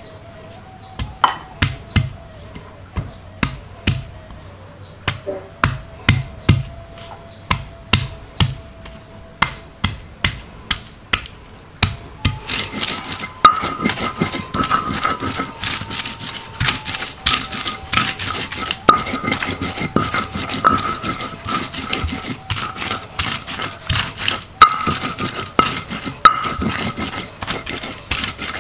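Kitchen food preparation: steady knocking of a utensil on a hard surface, about two knocks a second, turning about twelve seconds in into faster, denser knocking and scraping.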